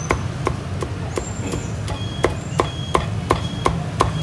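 Steel cleaver chopping crispy-skinned roast pork on a thick round wooden chopping block, in quick even strokes about three a second, over a steady low hum.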